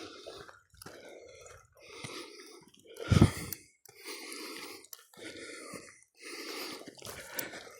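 A person breathing hard and fast, close to the microphone, with one loud bump about three seconds in.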